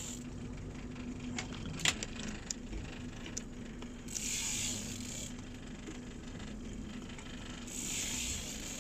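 A steady mechanical hum from the boat, with a few light clicks and two short bursts of hiss, about four and eight seconds in.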